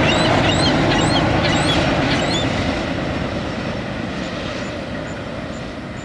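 CSX freight train rolling past: a steady rumble of wheels on rail that fades as the train moves off. Short high bird chirps sound several times over the first two seconds or so.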